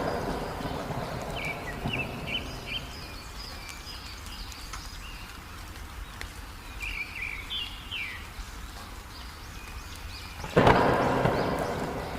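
Heavy rain falling steadily, with a clap of thunder fading over the first couple of seconds and a fresh loud clap breaking about ten and a half seconds in. Small birds chirp in short bursts a couple of times between the claps.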